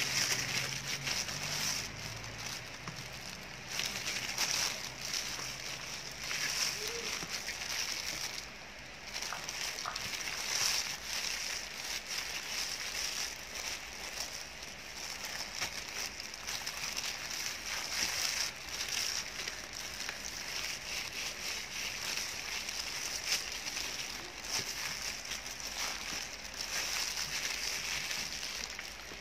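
Plastic-gloved hand rubbing marinade into a whole raw chicken on a steel tray: a steady crinkling of the plastic glove with wet squishing and rustling of minced lemongrass and lime leaves.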